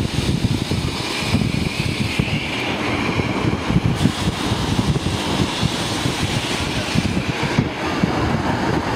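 Classic Blackpool heritage tram running along the track: a steady, uneven low rumble of wheels on rails with a hiss above it.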